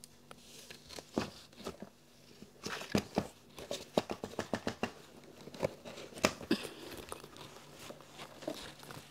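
Paint pots and brushes being handled on a table: scattered light clicks, taps and rustles, thickest from about three to five seconds in.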